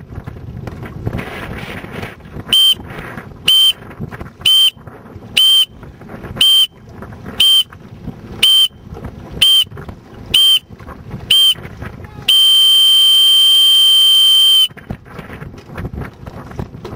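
Electronic race-start countdown beeper: ten short high beeps about a second apart, then a long beep of over two seconds marking the start, over wind buffeting the microphone.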